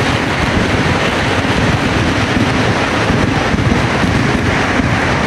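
Kerala temple-festival fireworks (vedikettu) going off in a rapid, dense barrage, the bangs running together into one continuous din with no break.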